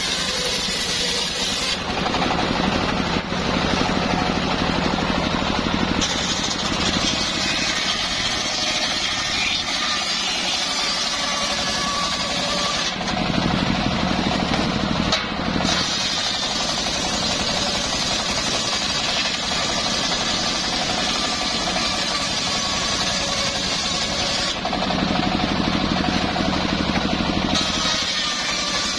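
Homemade engine-driven circular sawmill running steadily, its large blade ripping a long hardwood slab lengthwise. The hiss of the cut fades and a lower hum comes up for a few seconds about three times as the cut goes on.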